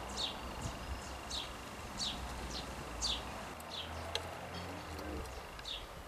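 Small garden songbird calling: short, high notes that each sweep downward, repeated about once or twice a second. Under them run a faint steady high whine and a low rumble of wind.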